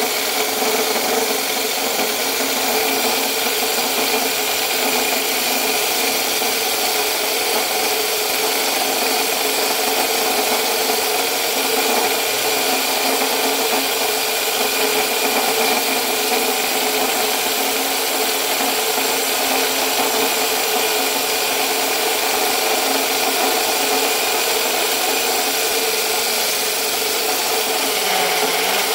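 Electric drill running steadily with a core bit grinding a hole into granite, a constant motor whine over gritty stone grinding.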